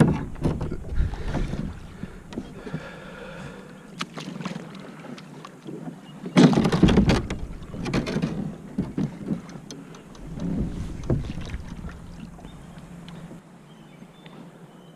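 Kayak being paddled through shallow water: irregular paddle strokes splashing and dipping, with a louder rush of water about six to seven seconds in.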